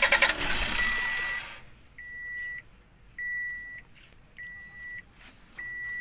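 Starter cranking the Toyota Hiace's 1KD diesel engine, which turns over but does not fire; the cranking stops about half a second in. Then a steady high-pitched electronic beep sounds five times, about once every 1.2 seconds.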